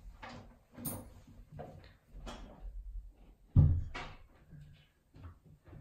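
Light knocks and clatters with one louder thump about three and a half seconds in: kittens moving about in and around a plastic pet carrier with a wire door.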